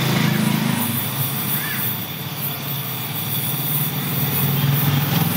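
Gas-welding torch flame burning steadily against the steel of a scooter's front mudguard clamp: a continuous hiss over a low rumble.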